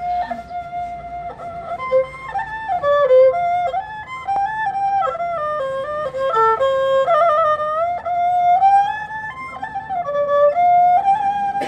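Tro Khmer, a Cambodian bowed spike fiddle, playing a solo melody, its notes stepping and sliding from pitch to pitch with quick ornaments.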